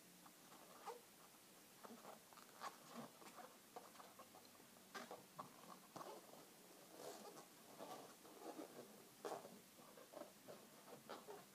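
A long latex 260 modelling balloon being twisted and worked by hand: faint, irregular squeaks and rubbing of the rubber.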